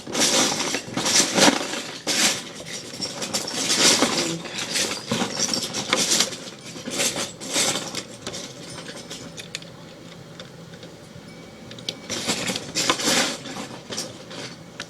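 Loose plastic Lego bricks clattering and rattling as hands rummage through a pile of pieces, busy at first, quieter for a few seconds past the middle, then clattering again near the end.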